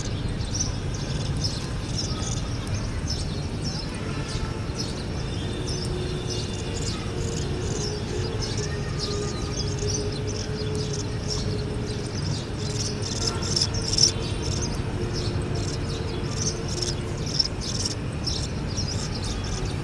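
A group of budgerigars chirping and twittering, with many short, high chirps following one another rapidly and overlapping without a break.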